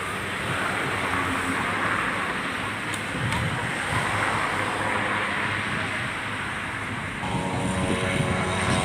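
Road traffic passing, a steady rush of tyres and engines, with a louder engine tone coming in over the last second or two.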